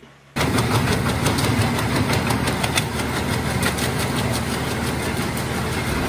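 Tractor-mounted wood chipper running under load as leafy branches are fed through, the engine and rotor noise thick with a dense crackle of chipping wood; it starts abruptly about a third of a second in.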